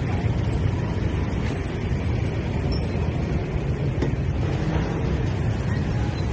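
Steady street traffic noise of motor scooters and motorbikes riding close alongside a moving bicycle, a continuous low rumble.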